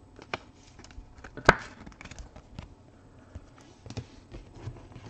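Trading cards being handled and set down on a table: soft sliding and light taps, with one sharper click about a second and a half in.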